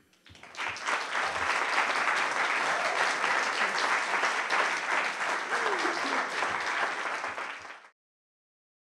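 Audience applauding, swelling up within the first second and cut off abruptly near the end.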